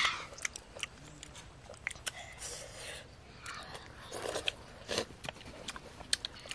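Eating cooked clams: sharp clicks of the shells being handled and picked at, with slurping and chewing as the clams are eaten from the shell.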